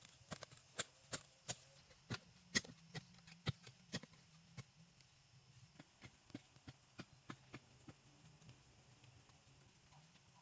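A run of sharp, irregular knocks or taps, several a second, loudest in the first few seconds and then fainter and sparser, over a faint low hum.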